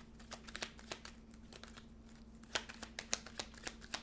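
Tarot cards being handled and laid out on a table: scattered light clicks and rustles, the sharpest in the second half, over a faint steady hum.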